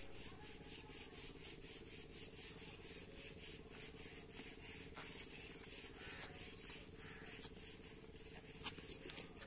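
Faint outdoor ambience: a high-pitched chirp repeating evenly several times a second over a low steady hum, with a few soft clicks near the end.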